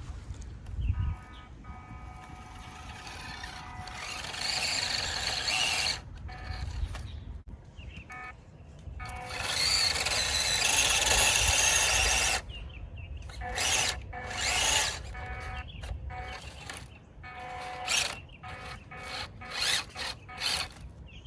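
Small electric motor of a remote-control mini truck whining and squealing as it drives, in runs that start and stop abruptly, with background music.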